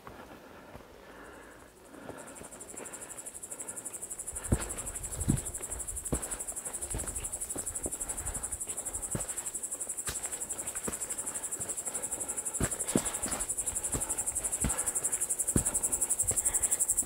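A cricket chirring in a fast, high-pitched trill that builds up over the first couple of seconds, grows louder and cuts off suddenly near the end. Under it, walking footsteps fall about once every 0.8 seconds.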